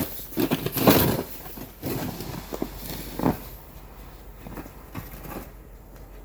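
Snow being shovelled: irregular crunching and scraping bursts, several loud ones in the first three and a half seconds, then fainter ones.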